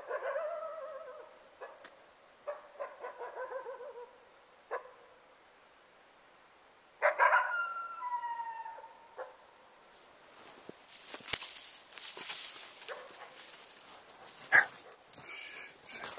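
Coyotes howling and yipping across the lake in three wavering bouts, the middle one broken into quick yips, as a response to calling. In the last several seconds they give way to a rustling hiss with a few sharp clicks.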